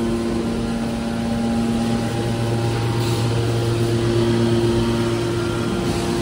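Hydraulic power unit of a scrap-metal baler running: electric motors and hydraulic pump giving a steady mechanical hum, whose tone shifts slightly about two seconds in.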